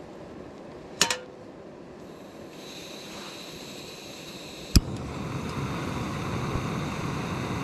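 Soto Windmaster canister stove being lit: a metal clink, then a faint gas hiss, a sharp click from the piezo igniter about halfway through, and the burner running with a steady rush after it.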